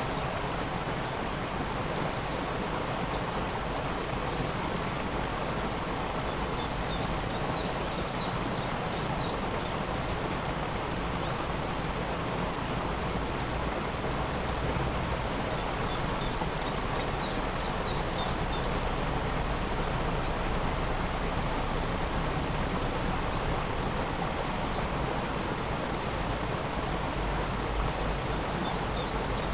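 Steady rush of a waterfall. A small bird sings three short phrases of quick, high repeated notes over it.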